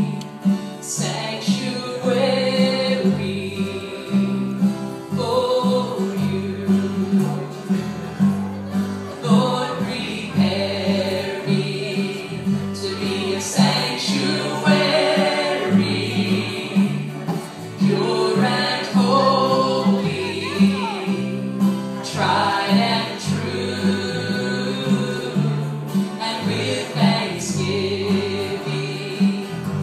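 Gospel group singing a song with instrumental accompaniment, the bass stepping from note to note under the voices.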